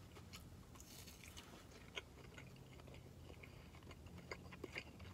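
Faint chewing: mouth sounds of a person eating a 7-Eleven cheeseburger roll, a few soft wet clicks scattered through, the sharpest about two seconds in and several more near the end.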